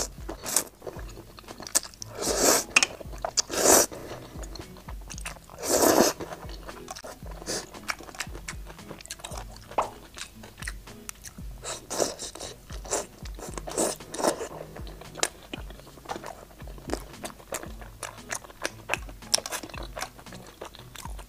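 A person slurping noodles and broth in three long, loud pulls in the first six seconds, then chewing with many small wet clicks and crunches.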